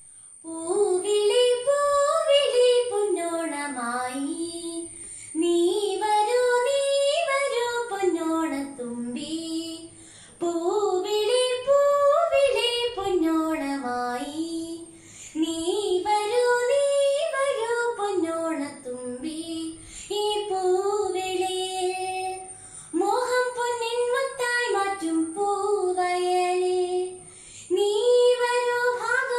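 A girl singing a Malayalam Onam song (Onappattu) solo, one unaccompanied voice. The melody climbs and falls in phrases of about five seconds, the first four much alike.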